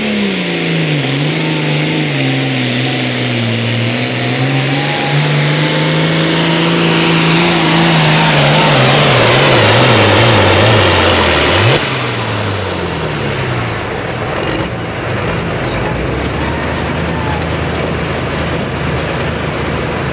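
International pulling tractor's diesel engine at full throttle hauling a weight-transfer sled. Its pitch holds, then wavers and sags as the load builds and the sound is at its loudest. A little past halfway the throttle is cut suddenly, and the engine falls back to a lower, quieter note to the end of the pull.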